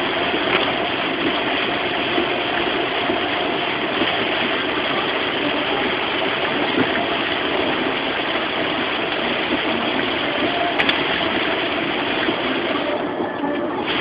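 Steady rush of heavy rain and tyres on a wet road, heard from inside a moving car, with the car's engine running underneath.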